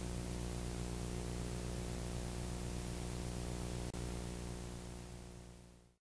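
Steady hiss with a low electrical hum and its overtones, with one brief click and dropout about four seconds in, fading out near the end.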